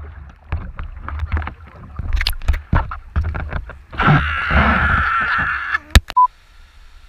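Knocks, taps and rubbing of a hand handling a kayak-deck-mounted action camera and its strap, then a loud rushing noise for nearly two seconds. Near the end comes a sharp click and a single short electronic beep from the camera as the hand reaches over it.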